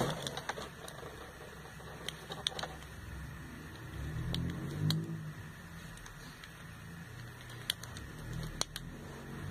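Light, scattered clicks and taps of small items being handled, over a faint low rumble that swells about four seconds in and again near the end.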